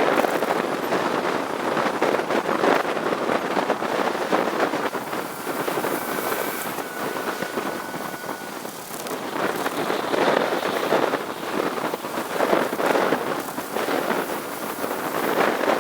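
Wind buffeting the microphone: a gusty rushing noise that swells and fades every second or two.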